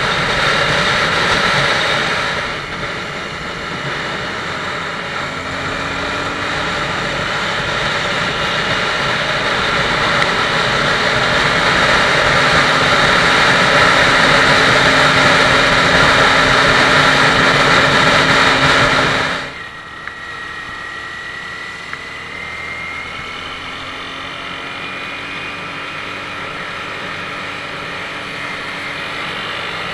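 Wind rushing over an action camera on a moving motorcycle, with the Honda CBR250R's engine running underneath and its pitch rising slowly at times. About two-thirds through, the wind noise drops suddenly to a quieter ride.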